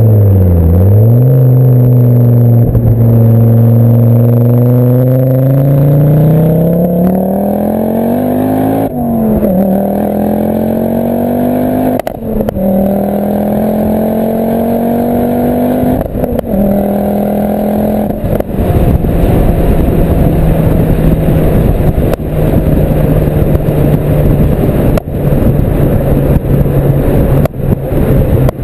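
Ford Focus RS Mk2's stage 2 tuned, turbocharged five-cylinder engine heard through a full Milltek exhaust with no silencers and a sports catalyst, accelerating through the gears: its note rises, then drops at gear changes about 9, 12 and 16 seconds in. From about 18 seconds it holds a steady pitch under more road and wind rush.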